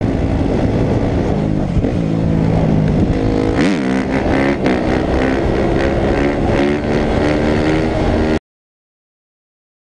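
Dirt bike engine running hard under throttle. Around four seconds in the revs dip sharply and climb again, then rise steadily. The sound cuts off abruptly near the end.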